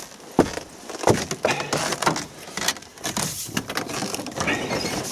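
Irregular crunching and squeaking footsteps on hard-frozen snow, with the knocks of a wooden plank door being opened and walked through.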